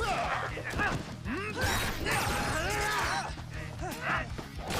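Action-show fight soundtrack: background music under a busy run of sound effects, with many short sweeping glides up and down in pitch.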